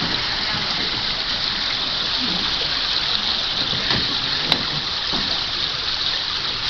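Steady rushing, splashing water, with a sharp click about four and a half seconds in.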